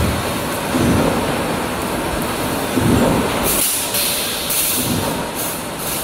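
A wire mesh welding machine with a row of pneumatic welding heads is running. The heads cycle with a dull thump about every two seconds, and short sharp air hisses come in the second half, over steady machine noise.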